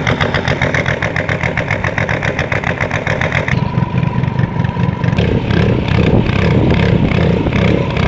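River boat's engine running steadily with a fast, even pulse, heard from aboard the boat. About three and a half seconds in the sound turns duller and a faint steady whine joins it.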